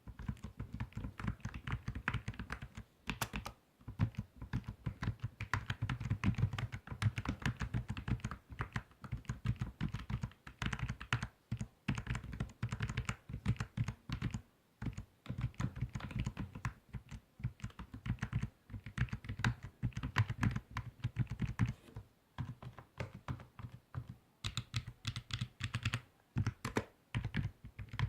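Typing on a computer keyboard: rapid runs of key clicks with a low thunk under each stroke, broken by short pauses.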